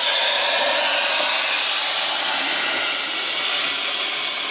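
Plasma cutter cutting through a steel roll-cage tube at its floor mount: a steady, loud hiss of the air-driven arc, holding level throughout.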